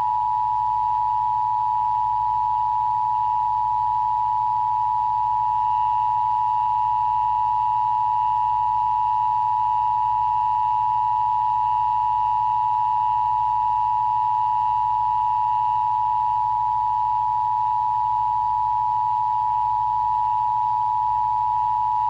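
Emergency Broadcast System Attention Signal: two steady tones sounding together, held at an even level without a break. It is the alert tone of an EBS test.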